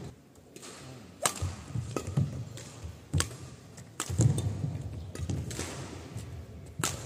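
Badminton rally: rackets strike the shuttlecock with sharp cracks about once a second, six or so in all, ringing in a large hall. Players' feet thud on the court between the strokes.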